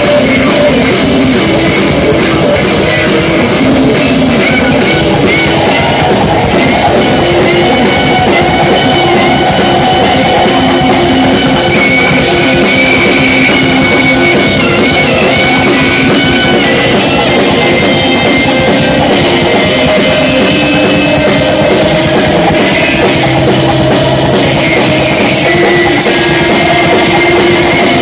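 A live instrumental jazz-rock band playing loud, with drum kit, bass guitar and electric guitar, and a wavering held lead line over the middle part.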